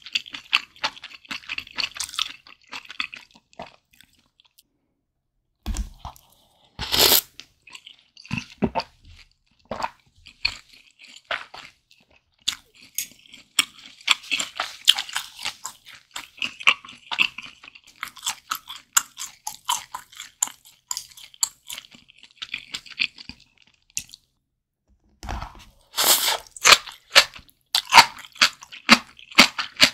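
Close-miked chewing of malatang, with wet, crunchy clicks in dense runs broken by brief pauses. A couple of low thumps and one louder burst about seven seconds in sit between the runs of chewing.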